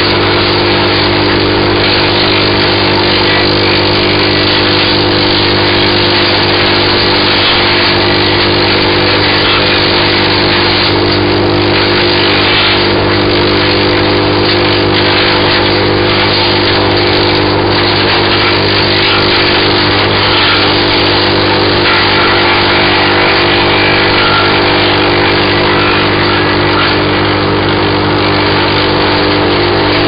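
BearCat CH8993H wood chipper running steadily, its engine a constant drone, while balsam fir branches are fed in and chipped, adding an irregular rough crackle.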